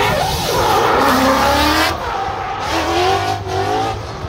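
Ford Mustang drift car sliding on tarmac, its engine revving up and down while the tyres screech, with the revs climbing again about three seconds in.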